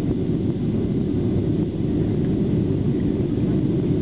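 Airliner cabin noise during the descent to land: a steady low rumble of the engines and rushing air, heard from inside the passenger cabin.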